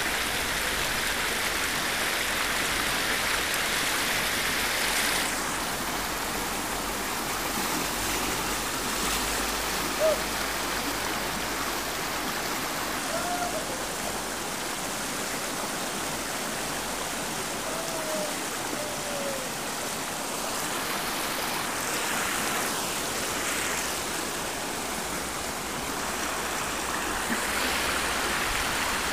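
Rapids on the River Derwent: white water rushing over rocks in a steady, full hiss. There is one brief knock about a third of the way in.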